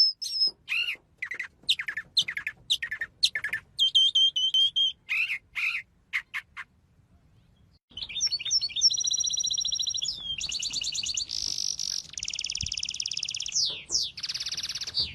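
Songbird singing: sharp chirps and whistled notes, a short pause about six and a half seconds in, then long rapid trills and rolls.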